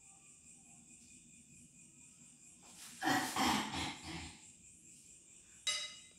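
Crickets chirping steadily. About three seconds in, a louder rustle and thump lasting about a second as a person sits down on a tiled floor, and a short ringing clink near the end.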